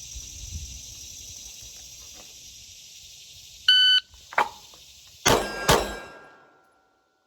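A shot timer gives one short high beep; about a second and a half later a handgun fires twice in quick succession, two sharp cracks under half a second apart, during a draw-from-holster drill.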